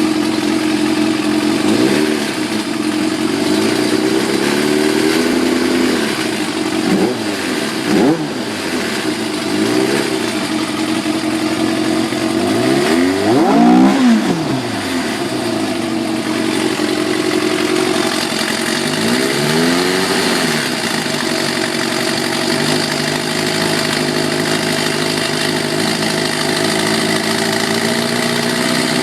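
1989 Kawasaki Ninja ZX-7 (ZX750H1) inline-four engine idling and being revved several times, the biggest rev about halfway through, each rev dropping back to idle. The owner says the engine sounds bad and does not know the cause.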